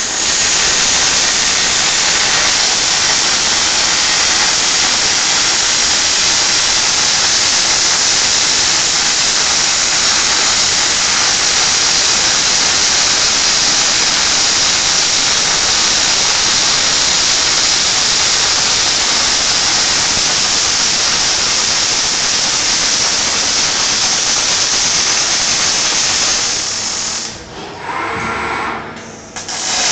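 Panasonic robotic MIG welding arc burning with a loud, steady hiss. About 27 seconds in the arc stops for roughly two seconds while the torch moves to the next joint, then strikes again near the end.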